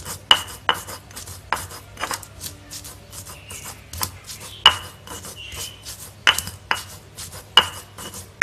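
Stone pestle grinding pepper and candlenuts in a black stone mortar (cobek and ulekan): repeated scraping, grating strokes of stone on stone, roughly two a second and unevenly spaced, some with a short high ring.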